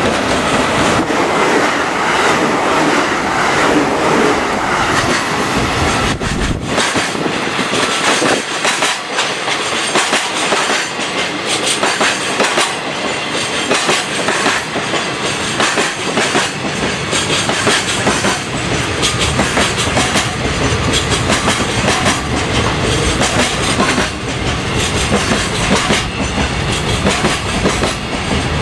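Container freight train's flatcars rolling past at speed, the wheels clicking over the rail joints in a loud, continuous clatter.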